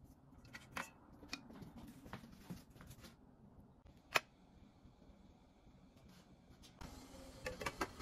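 Faint, sparse clicks and taps of kitchen utensils as banana batter is spooned into silicone cups set in a stainless steel steamer tray. The sharpest tap comes about four seconds in, and a few quick clicks come near the end.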